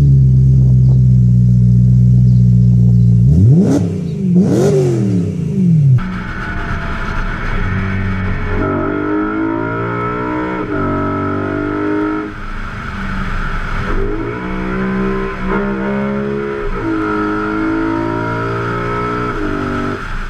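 BMW M3 E92's V8 held at steady high revs for about three seconds, then blipped twice, the pitch shooting up and falling back each time. After a cut, the car is under way with its revs climbing and dropping repeatedly, and a steady high whine runs alongside.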